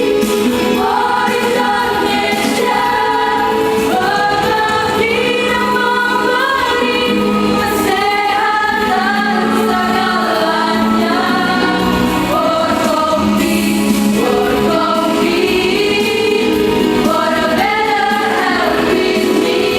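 Choir singing an Indonesian song, several voice parts in harmony at a steady level.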